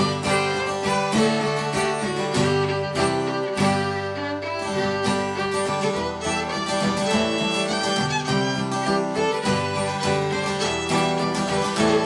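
Fiddle and cutaway acoustic guitar playing an instrumental folk tune together: the fiddle bows the melody over a steady rhythmic guitar accompaniment.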